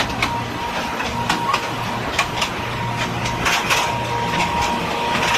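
Small mine tour train running, with a steady motor hum and scattered clicks and rattles.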